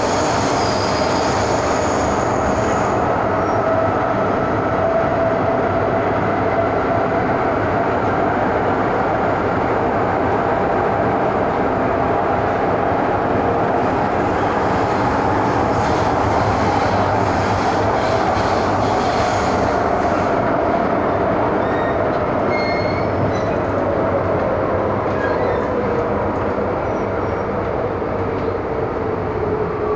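MTR M-Train subway car running through a tunnel, heard from inside the car: a steady rumble of wheels on rail with a motor whine that falls in pitch over the last several seconds as the train slows for a station.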